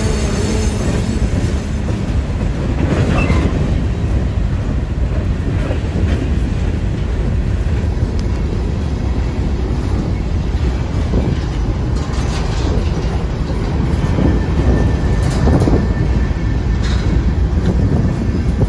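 Covered hopper cars of a freight train rolling past close by: a steady heavy rumble of steel wheels on the rails, with a few brief sharper metallic sounds standing out.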